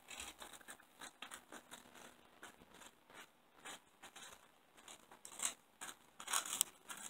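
A cat chewing a crunchy pork rind: a run of small dry crunches, loudest near the end.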